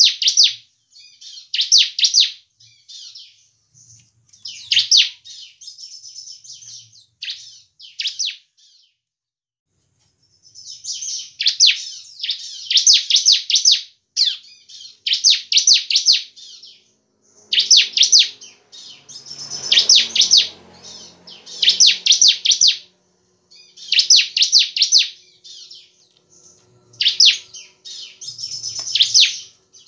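Caged bar-winged prinia (ciblek) singing vigorously: quick runs of sharp, high chirps, each burst about a second long and repeated every second or two, with a pause of about two seconds a third of the way in.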